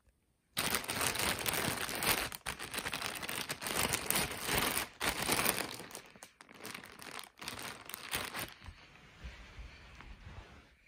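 Thin clear plastic bag crinkling and crackling as it is handled and turned over, starting about half a second in. It is loudest through the first eight seconds, then softens to lighter rustling near the end.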